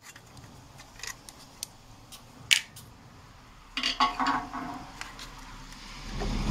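Scattered small clicks and metallic clinks as the Torx screws holding the old headlight are taken out with a screwdriver. The sharpest click comes about halfway through, and a cluster of clinks with a short ring comes a little later.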